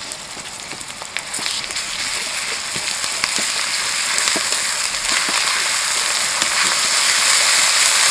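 Red chilli and ginger paste frying in hot oil in a metal kadai: a steady sizzle that grows louder as the paste is stirred in with a spatula, with scattered light crackles.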